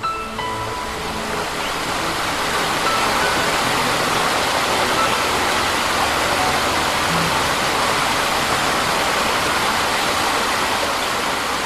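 Steady rush of a waterfall cascading over rocks.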